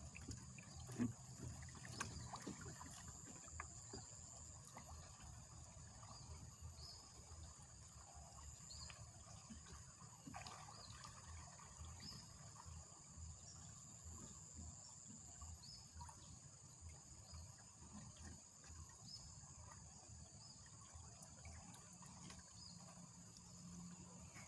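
Faint outdoor ambience: insects such as crickets keep up a steady high buzz with small chirps every second or two, over a low rush of fast-flowing river water. A few soft knocks sound in the first couple of seconds.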